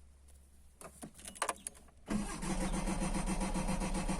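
A few light clicks, then about two seconds in a car's starter motor begins cranking the engine with a steady fast pulsing, the engine not catching: a car that won't start, which the owner puts down to the cold.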